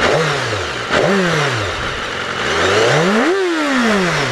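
Motorcycle engine revving in three throttle blips: two short ones that drop away quickly, then a longer climb to a peak followed by a fall back down as the sound fades.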